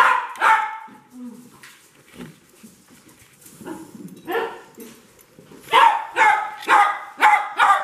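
Small dog barking in short, high yaps: two at the start, one about halfway through, then a quick run of about seven barks in the last two seconds. It is an excited greeting at its owner's return.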